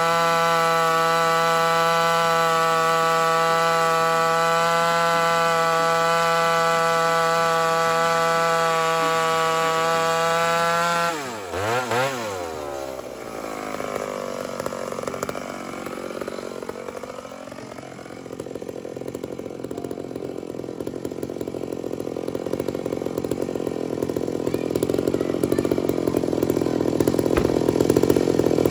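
Ported Homelite two-stroke chainsaw running at high throttle, a steady high whine for about eleven seconds. The pitch then breaks and sweeps down, and the sound turns rougher and noisier, building again toward the end.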